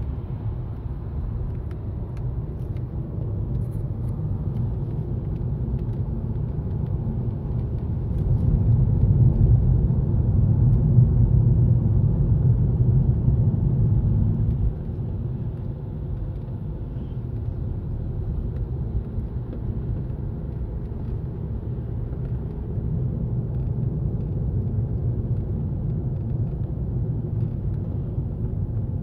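Steady low rumble of a Toyota Estima minivan driving, heard from inside the cabin. It grows louder for several seconds in the middle, then drops suddenly about halfway through.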